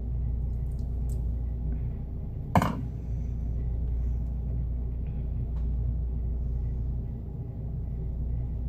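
A steady low hum, with a spoon knocking once, sharply, against a mixing bowl about two and a half seconds in, as lemon juice is measured out by the tablespoon. A few faint clinks follow.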